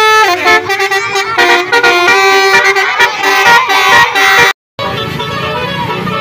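Telolet basuri multi-tone vehicle horn playing a fast melody: a held chord slides down, then quick short notes follow. About four and a half seconds in it cuts off abruptly, followed by a steadier, noisier background sound.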